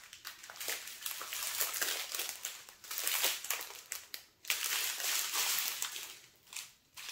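Thin plastic crinkling as a strip of small bags of diamond-painting drills is handled and spread out over a canvas in clear plastic film, with brief lulls about four seconds in and near the end.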